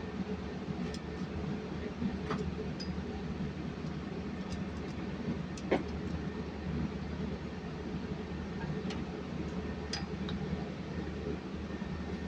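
Steady low machinery hum, with a few light metallic clicks and taps of hand tools on engine parts scattered through it; the sharpest tap comes about halfway through.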